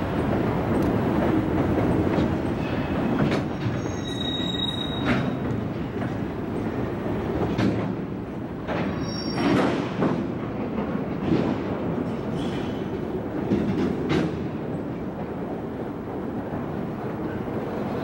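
Freight train cars rolling on curved track: a steady rumble with scattered clanks, and short high-pitched wheel squeals about four seconds in and again about nine seconds in.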